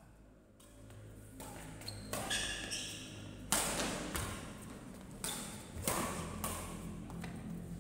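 Badminton rackets striking the shuttlecock in a fast rally: a string of sharp hits about half a second to a second apart, the loudest from about three and a half seconds in, each trailing off in the hall's echo.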